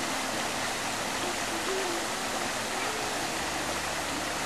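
Shallow rocky stream running over stones and small cascades, a steady even rush of water.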